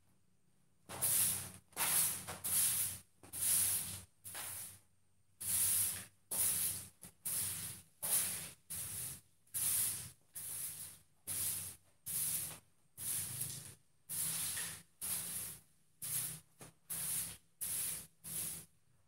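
Broom sweeping a floor in repeated swishing strokes, about one to two a second, with a short pause about five seconds in.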